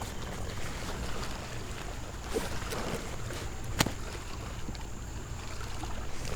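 Water lapping and trickling against a kayak hull over a low steady rumble, with a sharp knock just before four seconds in.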